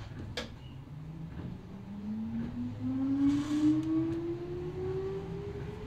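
Kintetsu 8000-series electric train's field-phase-controlled traction motors, heard from inside the motor car, with a whine that rises steadily in pitch as the train gathers speed. There is a sharp click about half a second in and a brief hiss a little past halfway.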